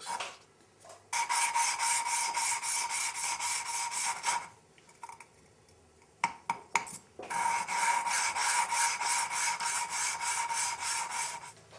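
Motorcycle engine valve being hand-lapped into its seat with grinding compound: two long bouts of fast back-and-forth grinding with a steady metallic ring, and a few light taps in the pause between them. The ringing tone is the sound of the valve and seat lapping in smooth.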